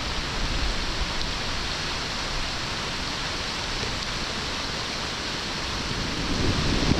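Heavy rain pouring down, a steady even hiss; it grows a little louder with a low rumble near the end.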